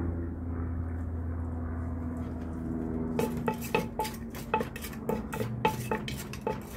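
Wooden pestle pounding green papaya salad in a clay mortar: sharp knocks, about three to four a second, each with a short ring, starting about three seconds in. A steady low hum runs underneath.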